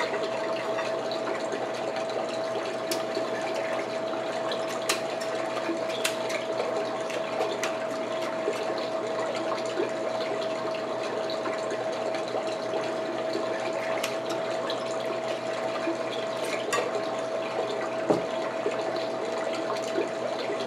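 Steady background hiss with a constant hum under it, broken by a few sharp clicks and cracks from king crab leg shells being handled and picked apart.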